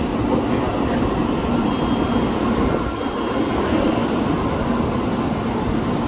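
N700-series Shinkansen train pulling out of the platform: a steady rumbling rush of its cars rolling past, with a few faint high tones above it.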